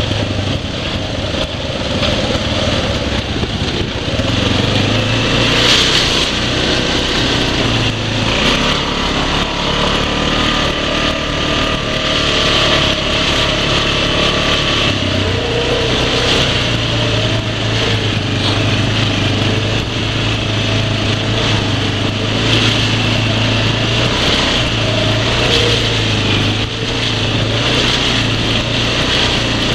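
Single-cylinder ATV engine running steadily as the quad is ridden along a trail, with a continuous haze of ride noise over it.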